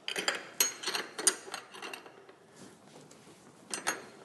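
Spanners clinking and scraping against the rear axle nuts of an adult tricycle as the dome nut and locking nut are locked together: a cluster of sharp metallic clinks in the first two seconds, then a few more near the end.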